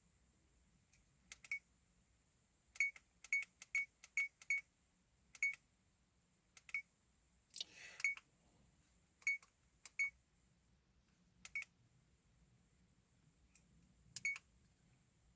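Dash cam buttons being pressed one after another, each press giving a short clicky beep, about fifteen in all at an uneven pace with quick runs of several, as the date and time are stepped through in the menu.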